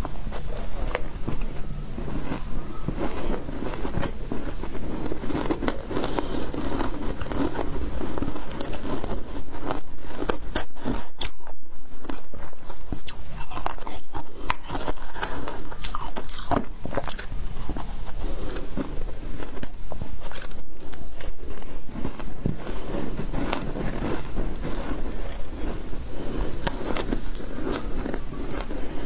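Shaved ice dusted with matcha powder being bitten and chewed, a dense, continuous run of crunching and crackling.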